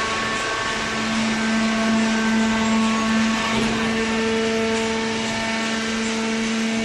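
Hydraulic baler's motor and pump running with a steady hum, which grows louder about a second in.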